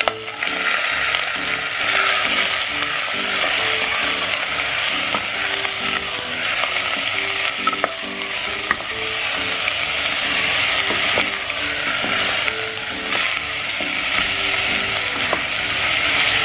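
Bone-in beef chunks sizzling as they fry with onion and garlic in olive oil in a stainless steel pot, stirred with a wooden spatula, with a few light clicks.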